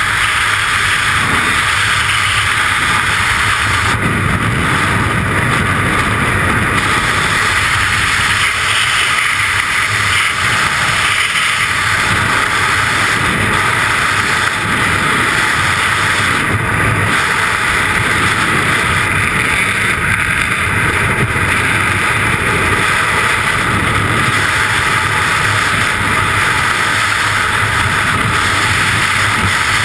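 Loud, steady rush of freefall wind buffeting the microphone of a camera worn by a skydiver falling at terminal speed.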